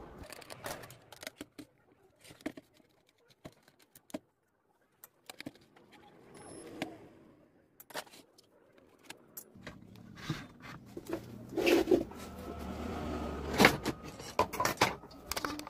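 Metal cover plate of an amplifier being unscrewed and taken off: scattered metallic clicks and clinks of screws, screwdriver and plate, pausing briefly, then busier near the end over a low hum.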